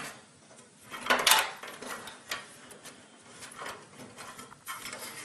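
Power supply cables and their plastic connectors being pulled out and tangled inside a desktop computer case: irregular rustling and light clicks and knocks against the case, the loudest about a second in.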